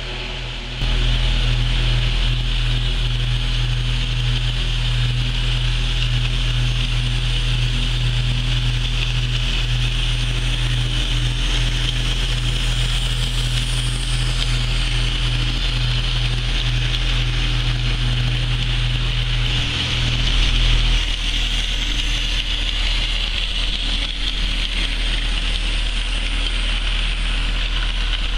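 HO scale model train rolling along the track: steady electric-motor hum with the running noise of wheels on the rails.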